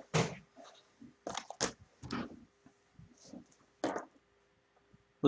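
A few short crackles and rustles with pauses between, from a box of basketball trading cards and its packaging being handled, over a faint steady hum.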